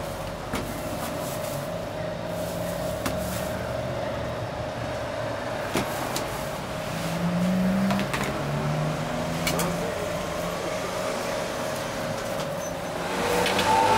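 Kitchen shears snipping through a roasted chicken on a plastic cutting board, a few sharp clicks, over a steady hum and the rumble of street traffic.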